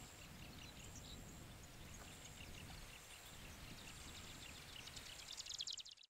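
Marsh grassbird song, faint: a fast, dry run of rapidly repeated notes that grows louder near the end and cuts off abruptly. A thin high tone repeats about once a second behind it, over low wind rumble.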